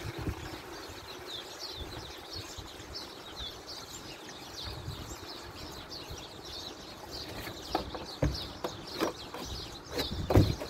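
Small birds chirping in the background: a quick, steady run of short falling chirps, several a second. Near the end come a few sharp knocks and clicks of plastic as the water jug and sprayer are handled, the loudest about ten seconds in.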